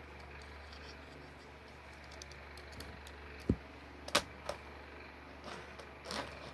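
Plastic Lego pieces knocking and clicking as a built figure is handled and set down on a table: a soft thump about three and a half seconds in, then a few sharp clicks.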